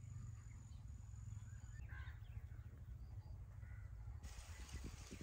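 Faint outdoor ambience: a low rumble, a thin high steady tone that stops about two seconds in, and a faint bird call around the same moment.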